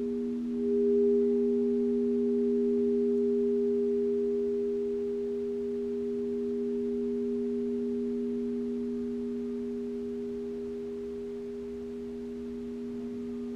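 Several crystal alchemy singing bowls ringing together in steady, pure tones. One bowl is played about half a second in and swells to the loudest tone, then all slowly fade.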